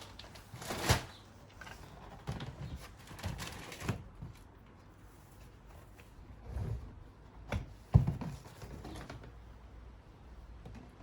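Scattered clicks, knocks and rustling of bird feeders and fat balls being handled, with the loudest sharp knock about eight seconds in.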